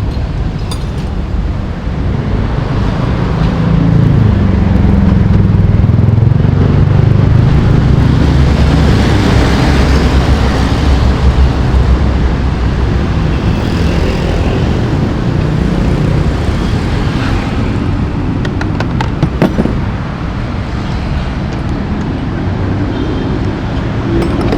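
Suzuki Burgman scooter engine running with the throttle held open, swelling louder for several seconds before easing back, with a few sharp clicks later on. The engine is hard-starting and won't keep running unless the throttle is held.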